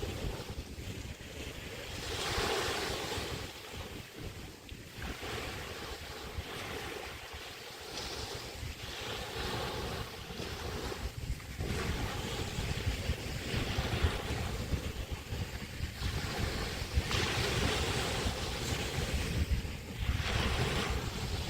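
Small Chesapeake Bay waves breaking and washing onto the beach in a swell every few seconds, with wind rumbling on the microphone.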